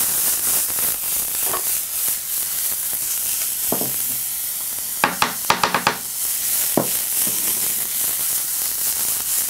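Mushroom pieces sizzling in hot oil in a frying pan, a steady hiss, with a quick run of sharp clicks about five seconds in.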